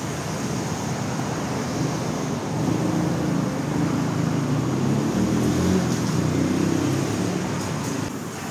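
Steady street traffic noise, growing a little louder for a few seconds in the middle as vehicles pass.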